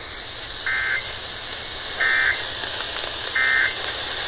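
Emergency Alert System end-of-message data burst, a short warbling digital screech sent three times about 1.3 seconds apart, marking the end of the test. It is heard over a radio receiver with steady static hiss.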